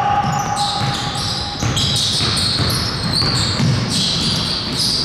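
Basketball game on a hardwood court: sneakers squeaking in many short, high-pitched chirps, with the ball bouncing and thudding underneath.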